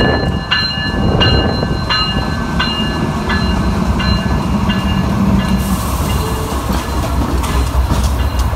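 Train passing with a steady low rumble. A bell rings about twice a second and fades out about halfway through. Sharp wheel clicks come near the end.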